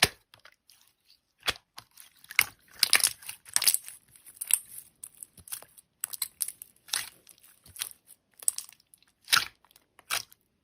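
Slime being squished and poked by hand, giving irregular crinkly crackles and small pops.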